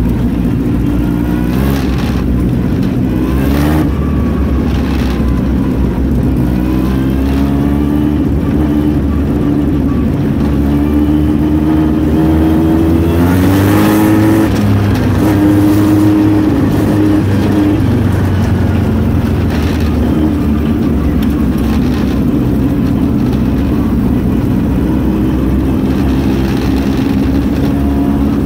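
Engines of a pack of open-wheel dirt-track race cars, heard from onboard one of them, running loudly and steadily. The engine note rises and falls with the throttle and climbs highest about halfway through.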